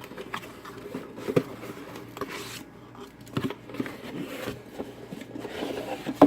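Packaging rustling, rubbing and scraping with small clicks as the soldering station's base unit is unpacked, with one sharp knock near the end.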